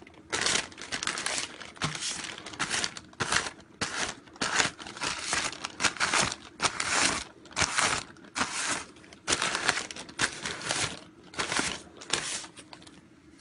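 Aerosol spray-paint can sprayed in many short, irregular bursts of hiss, each under a second long.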